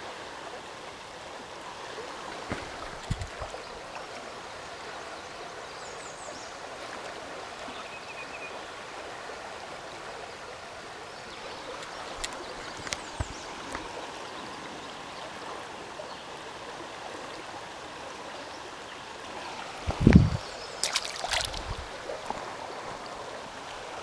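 Water of a small mountain stream rushing steadily. A few short knocks break it, the loudest a thump about twenty seconds in.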